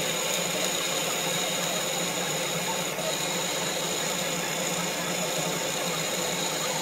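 Bench drill press running steadily, its bit cutting into a steel bar, with a steady high whine.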